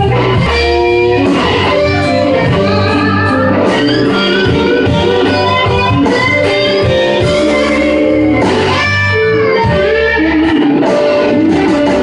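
Live blues band playing an instrumental passage, with an electric guitar soloing in quick runs of notes over bass and drums.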